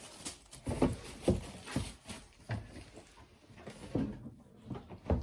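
Irregular dull knocks and scuffs of a large cardboard box being handled and its lid pushed shut.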